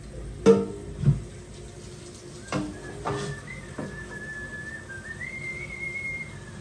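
A man whistling a tune in long, high held notes, starting about two seconds in and stepping up in pitch near the end. Before and under it, an air fryer drawer knocks a few times against a stainless steel sink, loudest in the first second or so.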